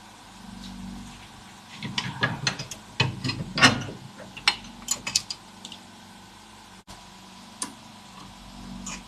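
Irregular metallic clicks and clinks of hand tools and a rear anti-roll bar link being handled and fitted under a car, bunched together between about two and five seconds in, over a low steady hum.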